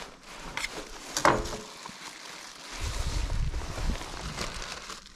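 Knocks and clatter of handling at a work surface where a fish is being filleted. The loudest knock comes about a second in, with a brief ringing tone. A low rumble joins from about three seconds in.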